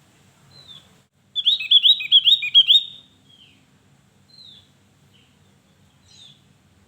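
Javan grey-throated white-eye (opior Jawa) singing: a loud, quick run of about eight high chirping notes starting about a second and a half in and lasting about a second and a half, with single softer call notes before and after.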